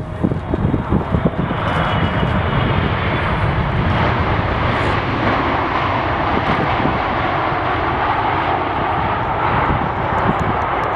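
Jet airliner engines, a steady rushing roar that swells about a second and a half in and holds, with gusty wind buffeting the microphone underneath.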